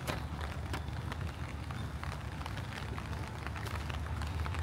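Rain falling, with many scattered drops ticking close by, over a steady low rumble.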